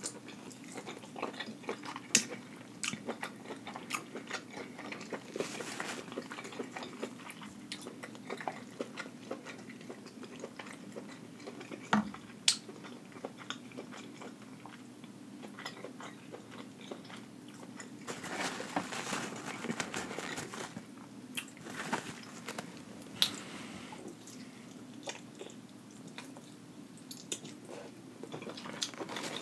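Close-miked chewing and mouth sounds of eating king crab meat, with small clicks and crackles of the crab leg shell being picked apart by hand; a few sharper clicks stand out.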